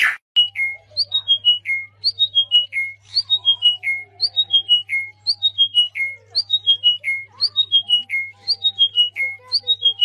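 A songbird singing one short phrase over and over: about five clear whistled notes stepping down in pitch, repeated about once a second. Fainter bird calls sound underneath, over a low steady hum.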